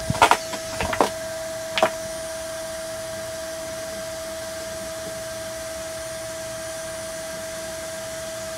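Prusa i3 MK2S 3D printer's hot-end cooling fan running with a steady whine while the hot end is heating. A few sharp clicks come in the first two seconds.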